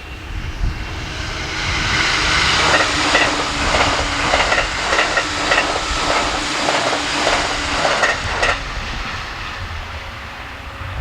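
Electric train passing at speed. A rush builds as it approaches, then about six seconds of rhythmic wheel clatter, two or three knocks a second, as the cars go by. This cuts off sharply when the last car passes, leaving a fading rush.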